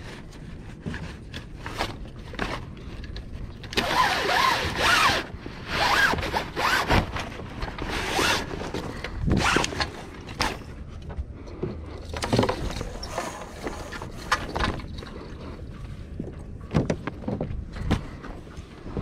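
Sail cloth and rope being handled at a small sailboat's boom: uneven bursts of rustling and rasping, loudest a few seconds in, with scattered small clicks.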